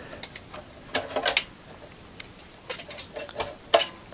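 Scattered light clicks and taps, some in small clusters, from hands handling the open chassis and speaker wiring of a small portable TV.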